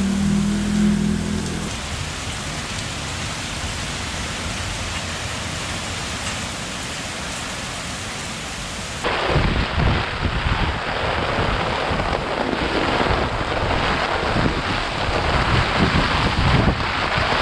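Steady hiss of heavy typhoon rain. About nine seconds in it changes abruptly to gusty typhoon wind buffeting the microphone, with rumbling low gusts over the rain.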